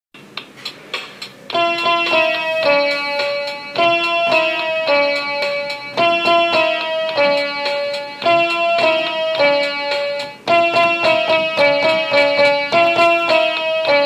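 Intro music: a bright, plinking melody that repeats the same short phrase about every two seconds. It starts about a second and a half in, after a few light ticks.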